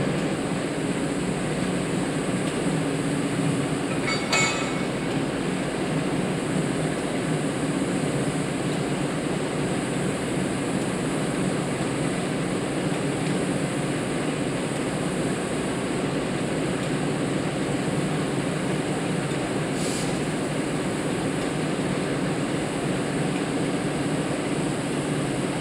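Steady, unchanging rumble of a train standing at a platform, with a short metallic clink about four seconds in and a click near twenty seconds.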